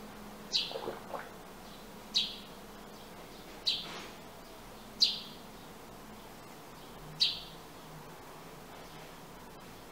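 Sparrow chirping: five short, sharp chirps, each dropping in pitch, spaced roughly a second and a half apart.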